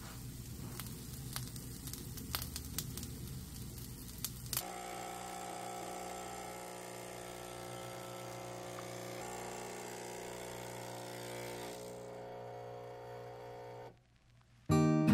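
Garlic toast sizzling in a frying pan, with small crackles. About four and a half seconds in, this gives way to an espresso machine's pump buzzing steadily as coffee pours into a glass pitcher. The buzz fades out near the end, and guitar music starts just before the end.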